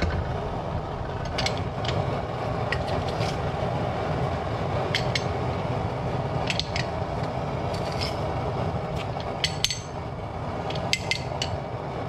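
Metal garlic press squeezing garlic cloves, with scattered sharp clicks and scrapes of the press, over a steady low rushing noise.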